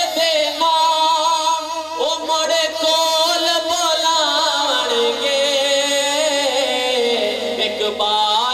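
A man singing a naqabat, a Punjabi/Urdu devotional poem, into a microphone, without instruments. Long held notes slide and waver, with one long note in the middle of the phrase falling slowly in pitch.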